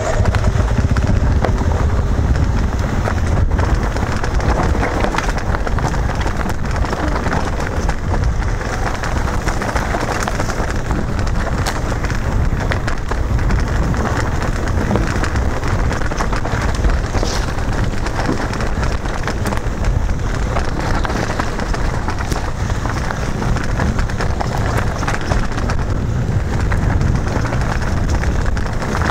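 Steady wind rush on the microphone with tyres crunching and rattling over loose rocks and gravel as an electric mountain bike rides fast down a rough dirt track.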